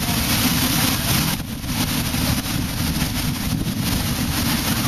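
Large waterfall pouring down at close range in a steady, loud rush, with wind and spray buffeting the microphone.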